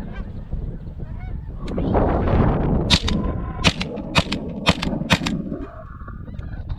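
A flock of snow geese honking overhead, then, about three seconds in, a quick string of about five shotgun blasts within two seconds.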